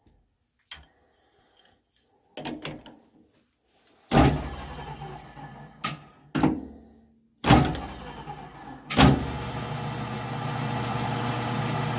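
A series of loud metal clunks as a wrench is set against the die holder on a metal lathe, then the lathe motor starts about nine seconds in and runs steadily with a low hum, turning the chuck to cut a thread on the rod.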